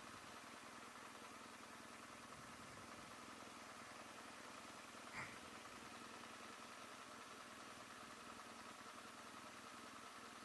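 Near silence: a faint steady hum, with one short high chirp about halfway through.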